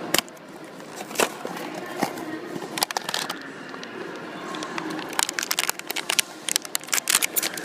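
Small cardboard blind box being handled and opened and its packaging crinkled: a string of sharp clicks and crackles, with a cluster about three seconds in and a denser run near the end.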